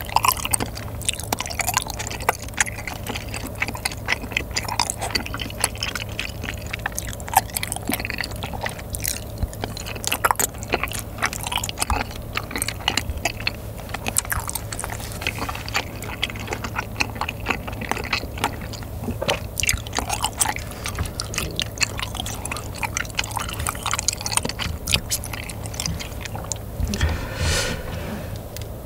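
Close-miked chewing of chewy, saucy glass noodles and chicken: wet squelches and rapid mouth clicks. A slightly louder burst of chewing comes near the end.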